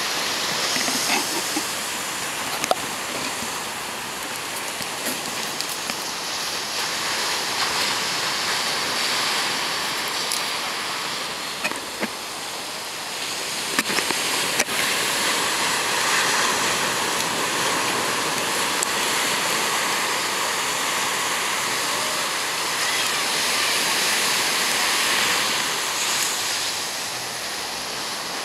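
Ocean surf breaking and washing up a sandy beach, a steady rushing noise that swells and eases, with a few short sharp clicks.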